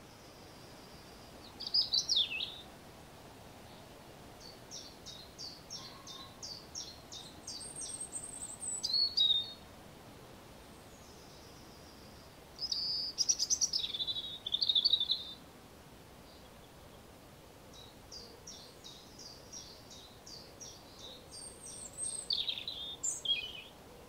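European robin singing: four high, warbling phrases with pauses between them, two of them long runs of quick short notes.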